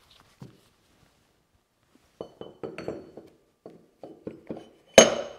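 Heated drive pulley knocking and clinking lightly against the milling machine spindle as it is lowered on, then a sharp metallic clank with a brief ring near the end as it drops home on its shrink fit.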